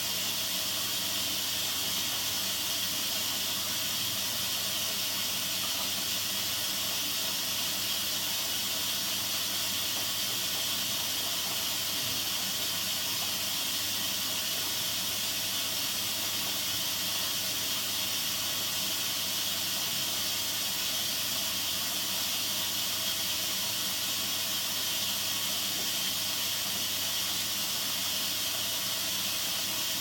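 Bendix 7128 washing machine running mid-programme, giving a steady hiss over a low hum.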